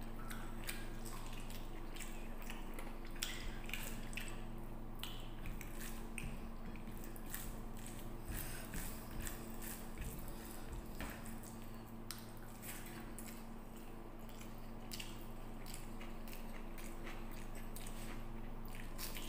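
Close-up eating sounds of rice and curry eaten by hand: chewing and lip-smacking with wet squishes of fingers mixing rice on a plate, as many short irregular clicks. A steady low hum runs underneath.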